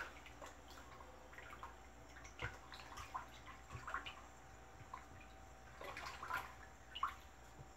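Wooden spoon stirring an oil-and-ethanol mixture in a plastic bucket: faint sloshing and dripping of the liquid, with a few light knocks and splashes scattered through.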